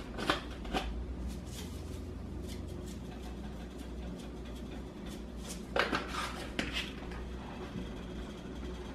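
Mostly quiet kitchen room tone with a low steady hum, broken by a few faint clicks near the start and a short cluster of light taps and rattles about six seconds in, as lemon pepper seasoning is shaken from a plastic shaker over chicken in an aluminium pan.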